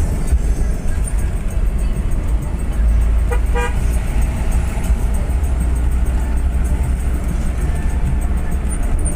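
Steady low rumble of a bus on the road, with a short double horn toot a little over three seconds in.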